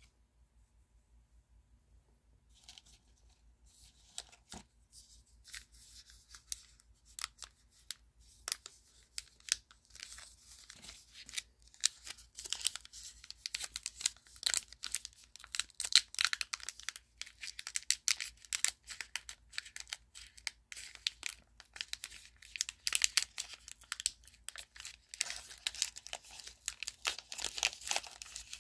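Plastic trading-card pack wrapper being torn open and crinkled by hand. It starts almost silent, then the crackling grows denser and louder from about twelve seconds in.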